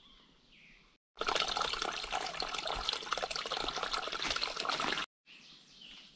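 Running water, trickling and splashing steadily for about four seconds, starting and stopping abruptly.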